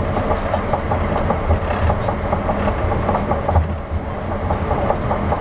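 Osaka 200 series New Tram, a rubber-tyred automated guideway car, running between stations, heard inside the car. A steady running noise with a low hum and a regularly repeating rattle.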